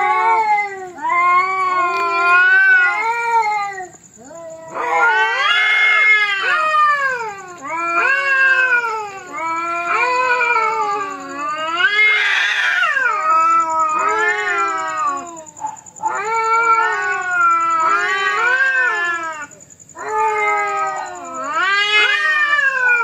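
Two cats squaring off in a fight, yowling at each other in long, drawn-out caterwauls. The calls waver up and down in pitch and follow one another with only short breaks.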